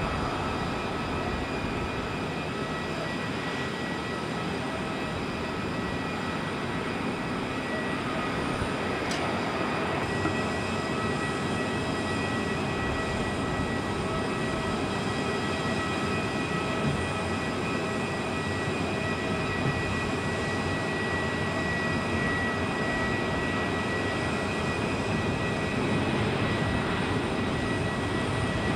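Steady jet engine noise across the airfield: a constant high whine held over a rushing hiss, growing slightly louder near the end as the next aircraft comes in.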